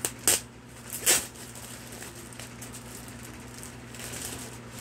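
Clear plastic bag crinkling as it is handled and opened, with two louder rustles about a quarter second and a second in, over a steady low hum.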